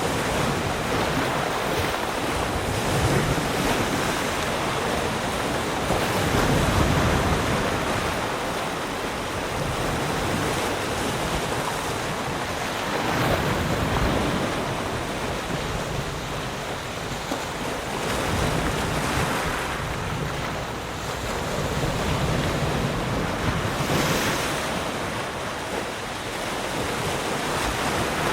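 Calm ocean waves lapping and washing around rocks, the wash swelling and easing every few seconds, with some wind on the microphone.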